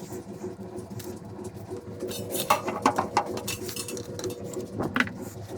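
Ultrasonic cleaner running with a dirt-bike wheel hub in its tank: a steady buzzing hum under a high hiss. From about two and a half seconds in, sharp metallic clinks and rattles join it.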